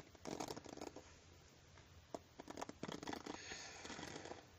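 Soft scratching and rustling close to the microphone, in a few short bursts: ASMR trigger sounds.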